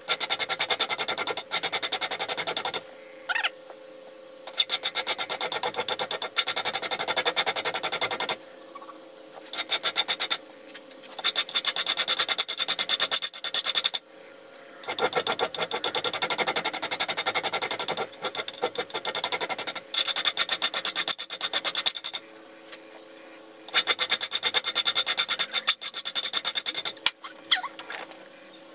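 Steel flat file rasping across a steel knife blade ground from a lawnmower blade, clamped in a vise. It goes in runs of rapid strokes broken by several pauses of a second or two.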